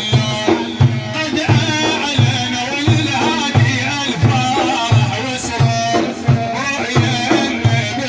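Middle Eastern devotional music without words: a steady deep drum beat about twice a second under a wavering melody.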